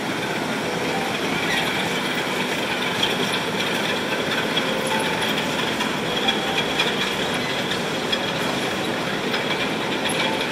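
Potato conveyor running: a steady mechanical rumble with a constant fine clatter of potatoes tumbling along the belt.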